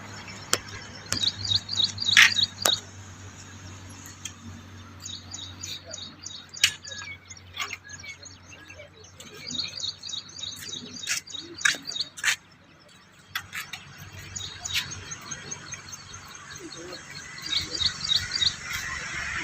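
Small birds chirping in quick runs of high chirps that come and go several times, with scattered sharp clicks over a faint low hum.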